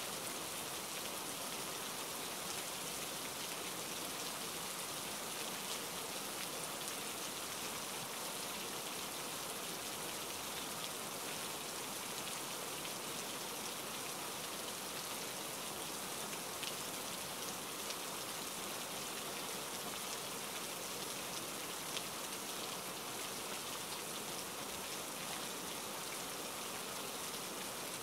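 Steady rain falling: an even hiss of rain on hard surfaces, with scattered single drops ticking through it.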